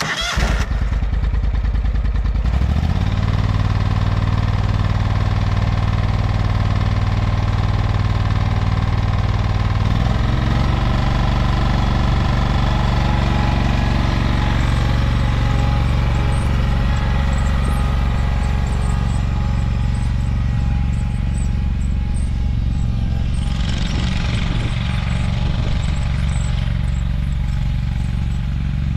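AGCO Allis 1920H garden tractor's engine cranking and catching, then running steadily. About ten seconds in its pitch shifts as the throttle is changed, and the tractor drives off.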